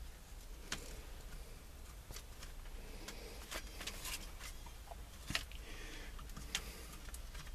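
Scattered light clicks and taps of small steering-column parts being handled and fitted back together after a turn signal switch swap, the sharpest about five and a half seconds in.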